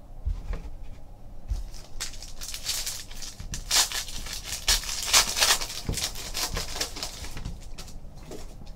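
Foil wrapper of a Panini Totally Certified basketball card pack being torn open and crinkled by hand: a dense crackling that starts about two seconds in and dies away near the end. It follows a few soft knocks of handling.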